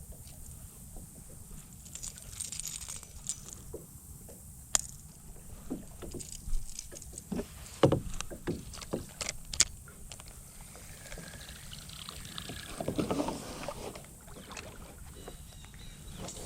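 Scattered knocks and clicks of gear and paddle against a kayak, with soft splashing of water in between.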